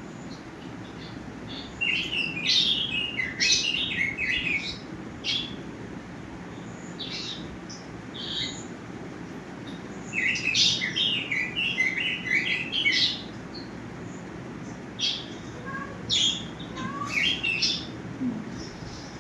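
Small birds chirping and twittering in quick bursts, two busy flurries of calls with scattered single chirps between them.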